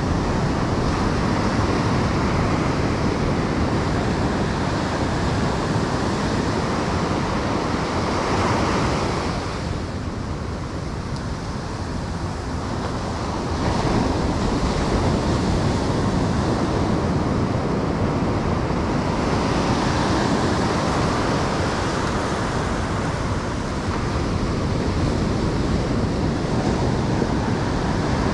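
Ocean surf breaking and washing up a sandy beach, with wind noise on the microphone. The wash eases for a few seconds about a third of the way in, then builds again.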